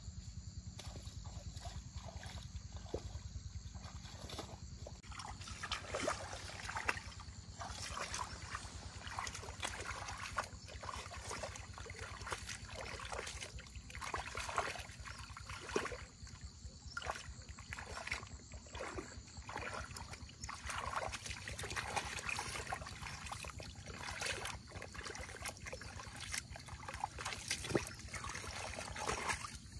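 Water sloshing and splashing in irregular bursts, over a steady low hum.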